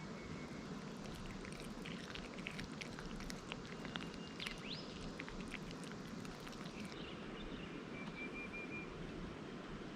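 A tabby cat chewing a small raw fish, a steady run of small wet clicks, while small birds chirp faintly, with a rising whistle about halfway and a short trill near the end.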